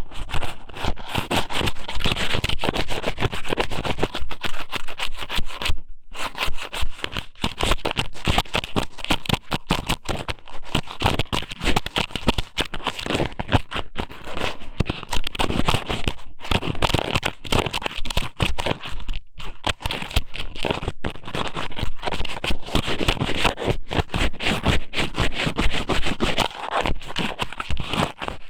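Squid noodle strips (ika somen) being pushed and rubbed inside a binaural ear-shaped microphone's ear: close, continuous wet scratching and crackling made of many quick clicks, with a few brief pauses.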